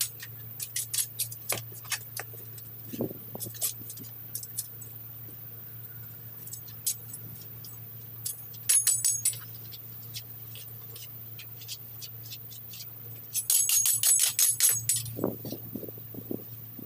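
A metal weeding tool scraping and clinking against brick pavers and soil as weeds are dug out, in an uneven run of sharp scrapes and clicks. Two dense bursts of clinking stand out, one about nine seconds in and a longer one from about 13 to 15 seconds in, over a steady low hum.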